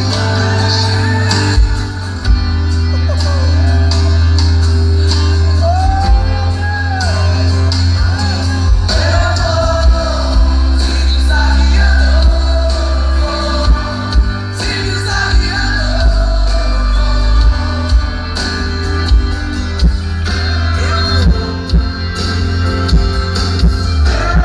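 A Portuguese-language gospel worship song with a male singer, playing loud through a car audio system, with a heavy, steady bass from its 10-inch NAR subwoofer in a box.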